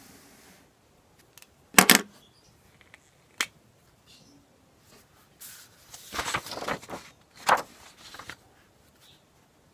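Desk stationery being handled: a sharp double click about two seconds in and a lighter click a second and a half later as a pen and a highlighter are handled. Then about three seconds of paper rustling as a sheet is moved, with a knock on the desk in the middle of it.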